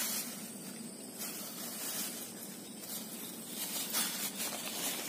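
Irregular rustling and scuffing in bursts over a steady high hiss.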